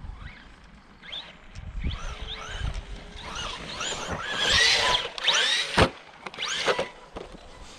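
Arrma Big Rock 3S RC monster truck's electric motor whining, rising and falling in pitch with quick throttle blips, loudest about midway through. A single sharp knock comes near six seconds in.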